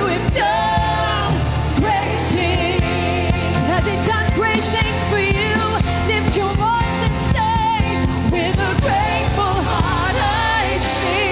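Contemporary worship song: a woman's lead vocal, with a wavering vibrato on held notes, over a full band with steady bass and regular percussion hits.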